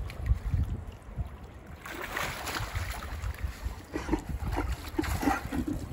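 Wind buffeting the microphone over lapping, splashing water, with short low calls from New Zealand fur seals in the second half.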